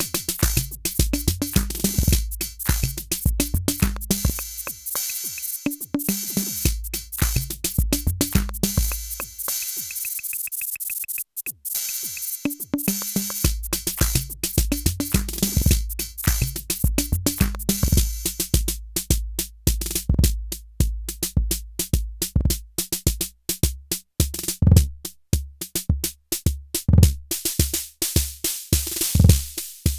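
Arturia Drumbrute analog drum machine playing a rhythm pattern: a steady kick-drum pulse under hi-hat and other percussion hits. The kick drops out for a short break about ten seconds in, and in the later part the beat turns sparser and punchier.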